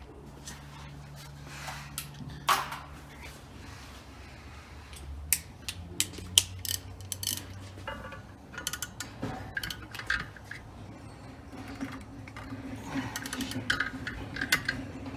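Hand tools clicking and knocking on the bolts of a Can-Am X3 secondary clutch as they are worked loose, with quick runs of clicks in the middle and near the end; the bolts are held with Loctite.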